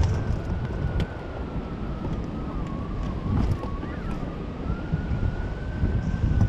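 Wind rushing and buffeting over the microphone of a camera mounted on a hang glider in its landing glide, with a thin high whistle throughout that slowly sinks and then rises again in pitch.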